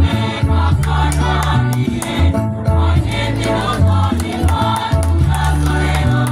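School choir singing in parts, with deep bass notes that change pitch in steps beneath the voices.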